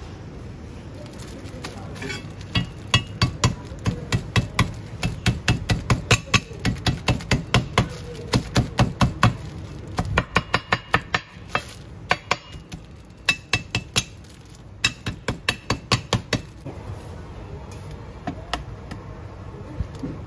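Chef's knife chopping garlic on a wooden cutting board: rapid repeated strikes, about three a second, in runs with short pauses, stopping a few seconds before the end.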